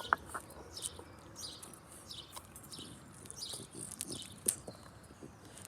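Birds chirping in the background: short, high chirps scattered throughout. Two sharp taps stand out, one at the start and one about four and a half seconds in.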